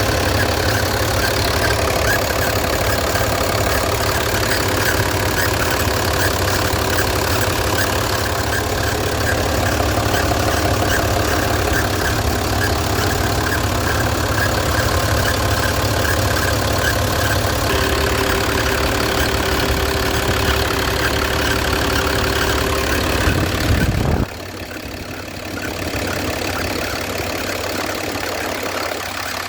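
Mercedes-Benz OM906 inline-six diesel idling, with a noise from the accessory drive that sounds like a bearing but comes from the belt. About 24 seconds in the low engine rumble cuts off suddenly, leaving a quieter sound.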